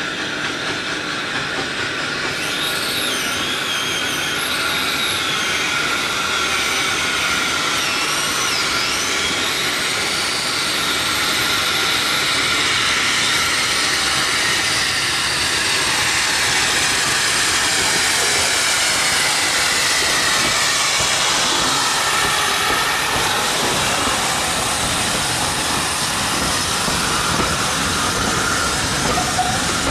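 Steam locomotive hauling a train of Pullman coaches slowly past, with steam hissing and the coaches' wheels clicking over the rail joints. It grows louder over the first dozen seconds as the train comes up.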